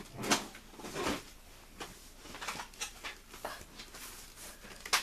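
Handling noises from a large toy dinosaur being moved into place: a string of irregular knocks and rustles. The loudest come about a third of a second in, about a second in and near the end.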